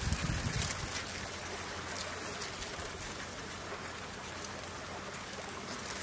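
Steady outdoor hiss of the wetland, with wind buffeting the microphone in the first second before dying away.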